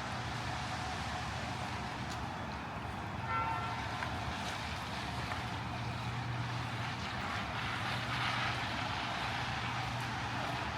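Street traffic ambience on wet pavement: a steady low hum of vehicles, with tyre hiss swelling as a car passes about eight seconds in. A brief pitched tone sounds about three seconds in.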